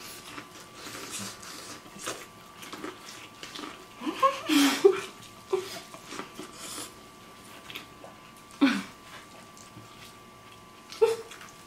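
Corn on the cob being bitten and chewed fast by two people, with wet, crackly mouth sounds, broken a few times by short muffled vocal noises through full mouths.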